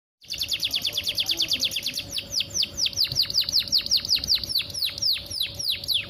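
Domestic canary singing a trill of repeated high notes, each sweeping downward in pitch. The notes come very fast at first, then slow to about four or five a second after about two seconds.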